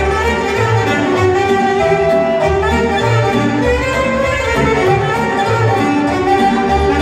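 Live band music played through the hall's PA: an instrumental passage with a string melody over a steady, pulsing bass, no singing.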